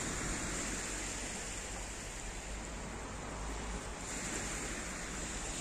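Steady wash of sea surf on a beach, with some wind on the microphone.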